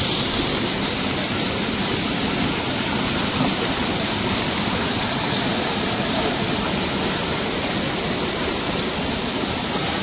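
Muddy floodwater rushing steadily over a rubble-strewn road, with no break or change.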